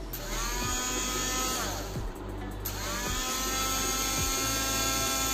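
Philips HL1655 hand blender's motor running with no load, blade spinning in the empty steel guard: it whirs up to speed, winds down about a second and a half in, then is switched on again about three seconds in and runs steadily.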